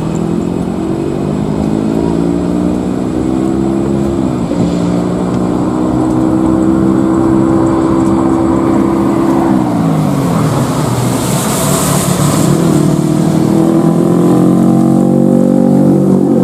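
A loud engine running with a low, pitched drone that drops in pitch twice and then climbs steadily again, with a rush of hiss partway through.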